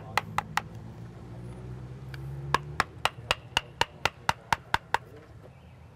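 Rapid, evenly spaced sharp taps on wood, about four a second, like a hammer striking. They stop about half a second in, start again after about two seconds, and stop about five seconds in. A low steady hum runs underneath.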